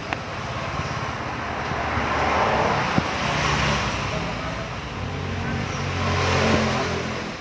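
Motor vehicle engine noise that swells and fades twice, like vehicles passing, with a few faint clicks.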